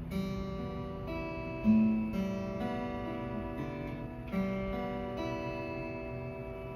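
Plucked string instrument, guitar-like, played with notes and chords left to ring. Two louder plucks come about two seconds in and about four and a half seconds in.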